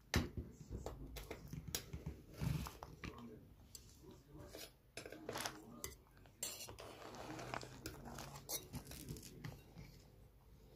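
Metal utensil scraping and clinking against a metal baking tray as a soft glazed cake is cut and a piece lifted out: scattered light clicks and short scrapes.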